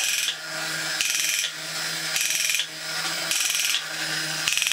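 A battery-operated plastic walking gorilla toy running. Its small electric motor hums steadily through the gearing, while the foot ratchets click against the rubber foot wheels in repeated quick bursts as the walking mechanism cycles. The ratchets are newly 3D-printed in PLA, and the toy is working again after the repair.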